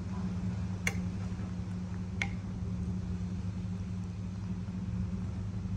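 Steady low machine hum, with two short clicks about one and two seconds in.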